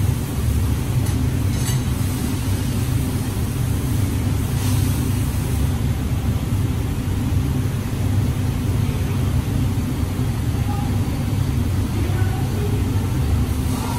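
Steady low drone of workshop machinery running without a break, with faint voices in the background.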